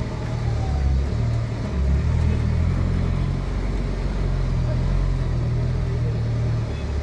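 Traffic noise in slow, dense city traffic: a steady low rumble of bus and car engines close alongside.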